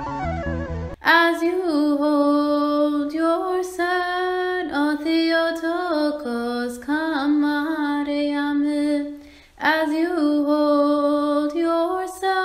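A woman's solo voice singing an Eritrean Orthodox Tewahedo hymn (mezmur) to Mary, unaccompanied, with long ornamented held notes. Instrumental music cuts off sharply about a second in, and the singing pauses briefly for breath at about nine and a half seconds.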